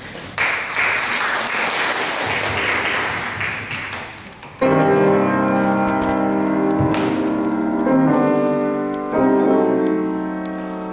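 Audience applauding, dying away over about four seconds. Then a grand piano starts a classical piece with sustained chords that change every second or so.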